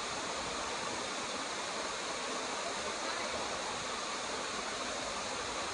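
Waterfall: a steady rush of falling and churning water.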